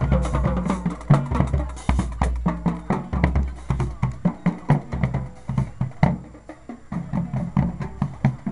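Marching band playing: a drumline beating rapid strokes over sustained low brass notes, the brass easing off about six seconds in and leaving mostly drums.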